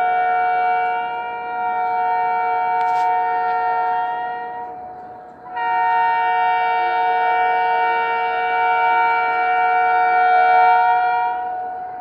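Indian Railways WAP-4 electric locomotive's dual horn sounding two long blasts as a steady multi-tone chord. The first blast stops about five seconds in, and the second starts a moment later and holds for about six seconds.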